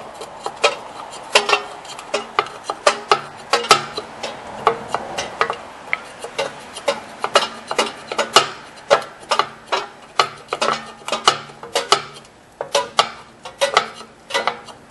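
Irregular metallic clicking, about two clicks a second, as a flat tool levers the parking brake's star-wheel adjuster round tooth by tooth through the slot in the rear brake backing plate, backing off the parking brake adjustment.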